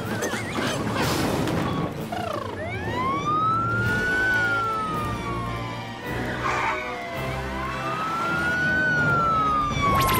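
Cartoon sound effects over background music: a brief clatter, then two long whistling glides that each rise and slowly fall, like a siren, with a loud whoosh at the very end.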